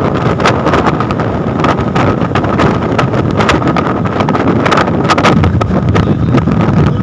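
Loud wind rushing and buffeting the phone's microphone in a moving car, over road and engine noise, with frequent crackles from the gusts and a faint steady whine underneath.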